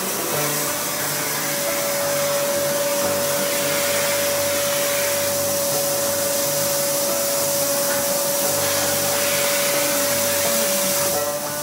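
Homstar HS-VC2300 vacuum cleaner running steadily: a rush of air under one steady motor whine.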